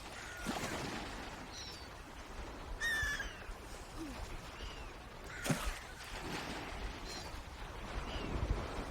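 Swans calling: a string of short, scattered calls, one louder and sharper about three seconds in, over a low outdoor rumble.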